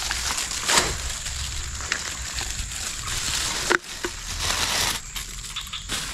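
Crunching, crackling rustle of dry plant material being handled, full of small ticks, with one sharp snap about two-thirds of the way through.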